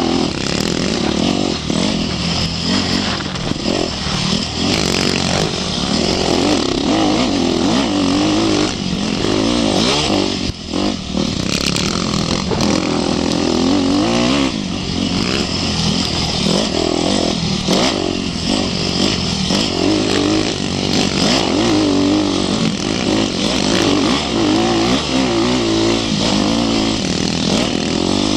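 Yamaha 250 cc four-stroke dirt bike engine heard on board while riding a rough trail, its pitch rising and falling continually with the throttle. The revs drop off briefly about ten seconds in.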